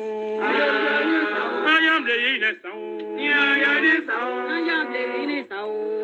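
Men's voices singing a choral song in phrases over a held low note, with brief breaks between the phrases. It sounds thin, with no deep bass and no high treble.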